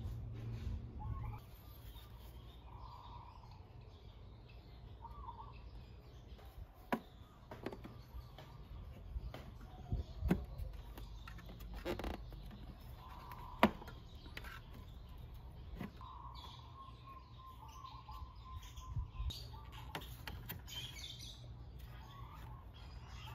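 A few sharp clicks and knocks as a Vespa GTS side trim panel is handled and pressed into place against the scooter body, over faint bird chirps and a steady low hum.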